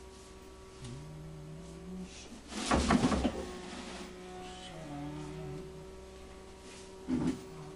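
Steady electrical hum, with a low voice sounding briefly twice. A loud, rough noise comes about three seconds in and lasts under a second, and a shorter one comes near the end.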